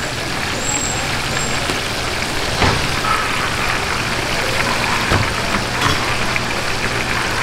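Pork rolls wrapped in caul fat deep-frying in a wok of hot oil, the oil sizzling steadily over a low steady hum, with a few clicks of metal tongs against the wok.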